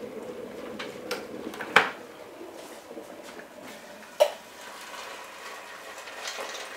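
Two sharp knocks of kitchen items being handled, the second with a short ring, then water poured from an electric kettle into a steel pasta pot as a faint, steady splashing.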